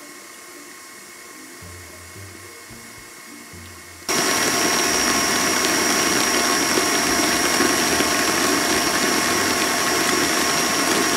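Stand mixer with a whisk attachment whipping meringue: a steady whirr with a high whine. It is faint at first and then loud and close from about four seconds in.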